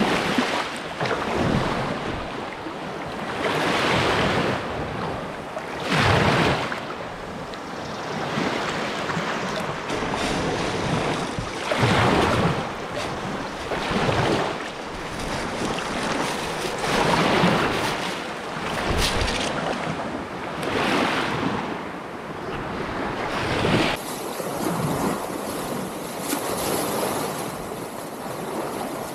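Small bay waves breaking and washing over the sand at the water's edge, surging up every few seconds, with wind buffeting the microphone.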